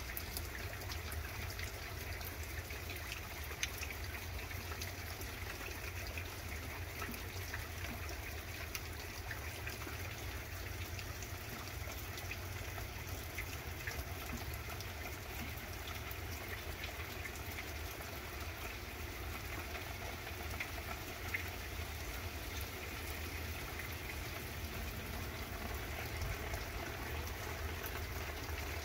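Steady rain falling and dripping on leaves and the yard, full of tiny pattering ticks, over a low steady rumble.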